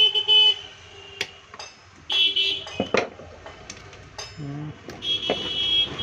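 Pliers gripping and turning the nut on a volume-control potentiometer's threaded bushing: three short, high metal squeaks with sharp clicks between them. The nut is breaking.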